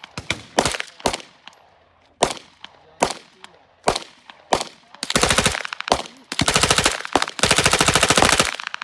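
Single gunshots, then an HK MP5 in 9mm firing three short full-auto bursts in quick succession, each about half a second to a second long.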